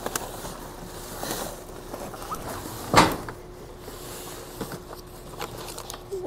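Large cardboard boxes being handled and shifted in a dumpster: scraping and rustling of cardboard, with one sharp knock about three seconds in.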